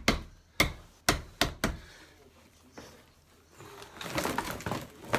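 Mallet tapping flexible plastic edge trim into the edge of a laminated furniture panel: about five sharp knocks in the first two seconds. From about the middle, a rustle of handling as the long trim strip is pulled about.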